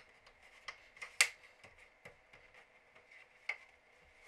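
Plastic casing of an Xbox One console clicking as it is pressed together by hand: a series of sharp clicks, the loudest about a second in and another near three and a half seconds.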